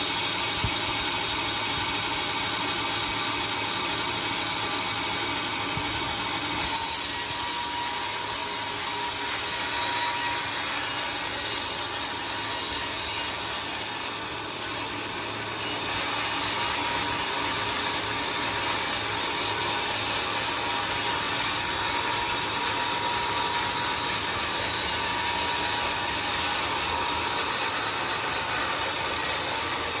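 Homemade bandsaw sawmill running and sawing through a teak log, a steady mechanical noise of blade and motor. A sharp knock comes about six and a half seconds in, and the noise dips briefly around the middle before picking up a little louder.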